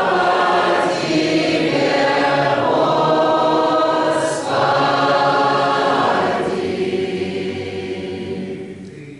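Doukhobor choir singing a hymn in Russian, unaccompanied, in long held notes. There is a short break for breath about four seconds in, and the singing grows softer near the end.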